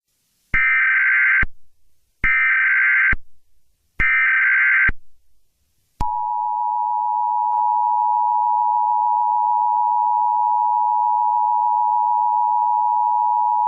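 Emergency Alert System SAME header: three screechy digital data bursts, each about a second long with a second's gap between them. About six seconds in, the harsh two-tone EAS attention signal starts and holds steady, announcing an alert message.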